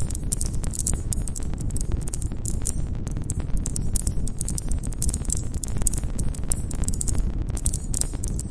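Campfire crackling: a dense, irregular run of sharp snaps and pops from the burning wood over the steady low rush of the flames.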